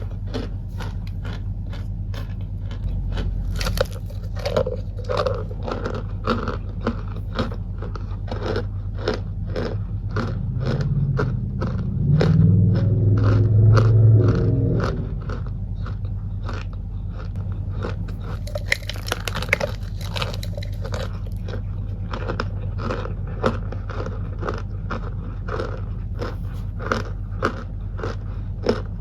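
Packed cornstarch crunching in a steady run of crisp crunches, about two to three a second, over a low electrical hum. From about eleven to fifteen seconds in, a louder low rumble rises under the crunches.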